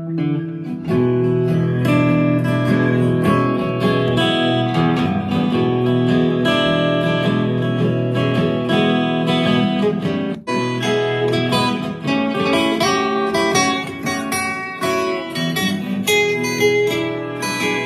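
Instrumental blues guitar music played at maximum volume through an Anker Soundcore 2 Bluetooth speaker, with a brief break in the sound about ten seconds in.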